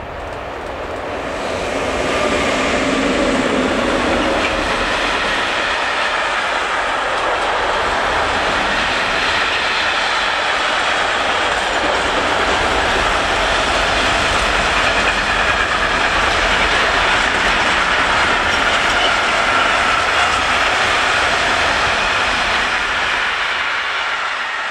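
A container freight train passing close by at speed. The rush swells over the first couple of seconds as the locomotive arrives, then the wagon wheels run on the rails in a steady, loud rush that fades away near the end.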